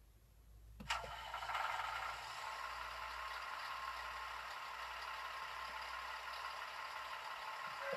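Digital sound decoder in an H0-scale Liliput LINT 27 model railcar playing its diesel engine sound: a click about a second in as the engine starts, then steady idling through the model's small speaker.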